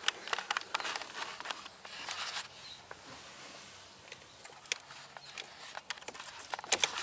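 Scattered plastic clicks, taps and rustling from handling the lower dash trim panel and unplugging the wiring connector from the differential-lock switch, with a cluster of clicks near the end.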